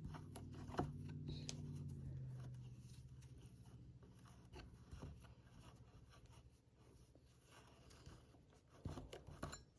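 Faint scattered clicks and light scrapes of hands and a tool working on a chainsaw, over a faint low hum that fades out in the first few seconds.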